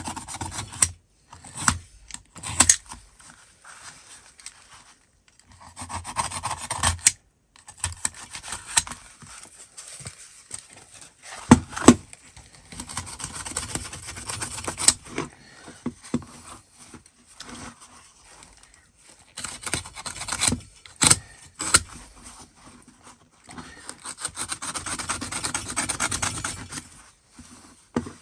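Utility-knife blade scraping and slicing through a filofax cover's fabric and backing board, in stretches of rasping scrapes broken by short pauses, with a few sharp clicks along the way.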